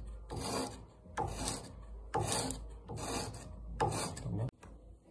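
Cut end of a cane ney reed rubbed on sandpaper laid flat on a bench, flattening the end: five scratchy strokes about a second apart, stopping shortly before the end.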